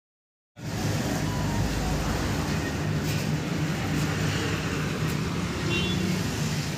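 Street traffic noise: a steady rumble of vehicle engines on the road, cutting in abruptly about half a second in.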